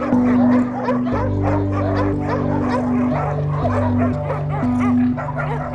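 Shelter dogs barking repeatedly, over background music with long held low chords.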